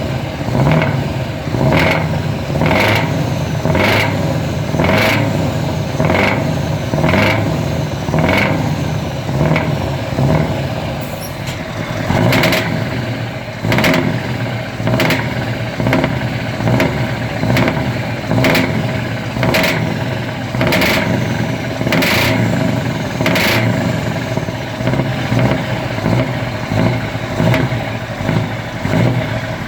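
V8 truck engine running through open exhaust pipes, a steady deep rumble with sharp bursts recurring about once a second.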